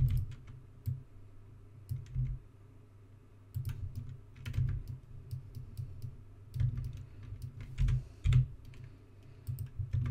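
Keys being pressed on a computer keyboard: scattered, irregular clicks at an uneven pace, each with a dull low knock.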